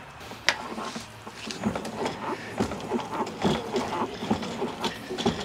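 Retractable pressure-washer hose reel winding the hose back onto its drum, with irregular clicks and rattles as the hose feeds through the back-and-forth moving hose guide.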